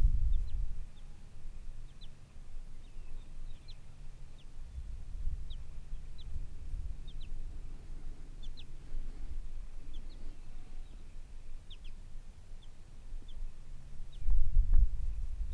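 Wind rumbling on the microphone, strongest at the start and again near the end, with many faint, short, high chirps scattered throughout.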